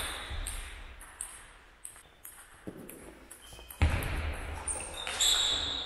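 Table tennis ball clicking off the bats and the table during a rally, with a heavier thump about four seconds in.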